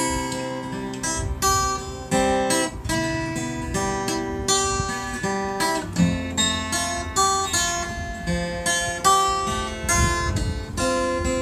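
Cutaway acoustic guitar played solo, picked single notes and chords at a slow, even pace of about two notes a second: the intro of a song.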